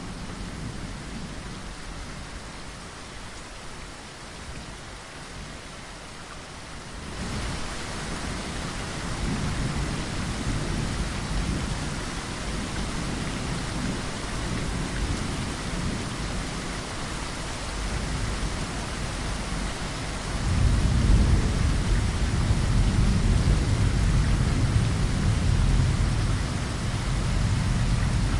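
Steady rain falling against a window, with thunder rumbling. The rain gets heavier suddenly about seven seconds in, and a louder, longer roll of thunder starts about two thirds of the way through.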